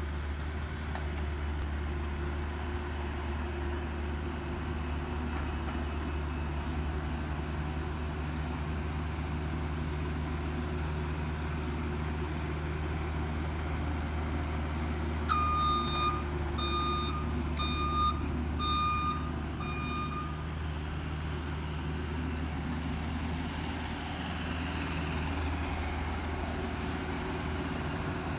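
Kubota mini excavator's diesel engine running steadily while it works. In the middle, a backup alarm sounds five beeps about a second apart.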